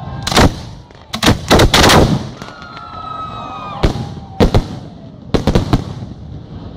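Aerial firework shells bursting overhead: about a dozen sharp bangs in irregular quick clusters, with a brief high held tone about halfway through.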